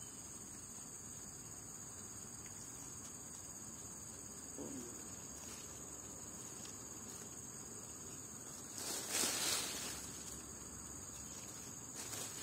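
Steady high-pitched insect chorus, with a brief louder noise about nine seconds in.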